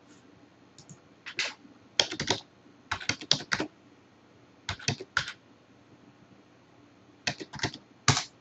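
Computer keyboard keys tapped in about six short quick bursts of a few strokes each, with pauses between, as an IP address is typed.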